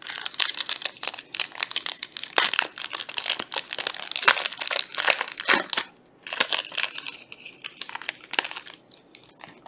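Foil wrapper of a Panini Prizm basketball trading-card pack crinkling as it is torn open and pulled apart by hand: a dense run of crackles, with a brief pause about six seconds in before more crinkling.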